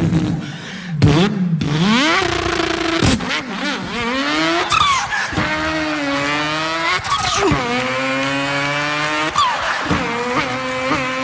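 A man's voice imitating a car engine revving up through the gears, the pitch climbing and then dropping sharply at each shift, with a few high falling whistles like a turbo.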